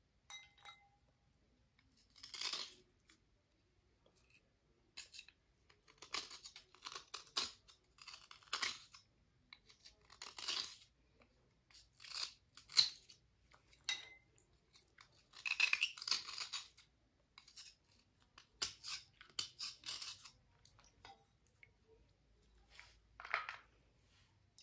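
Slate cubes being rubbed and scraped clean: an irregular series of short, dry, gritty scraping strokes, some louder than others, with brief pauses between them.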